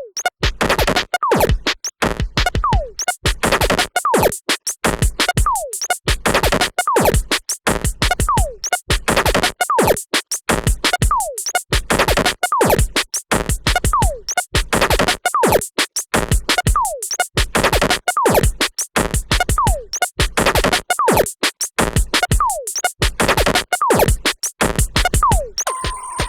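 Electronic background music: a fast, choppy drum-machine beat with short falling pitch glides repeated throughout. Near the end the beat stops, leaving a steady high tone.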